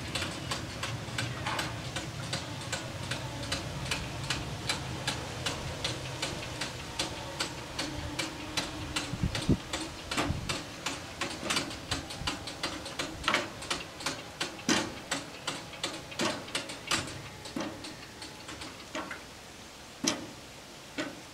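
Level-crossing bells striking in a rapid, even ticking while the barriers rise after a train has passed. The strikes grow sparser and stop near the end as the warning cycle finishes.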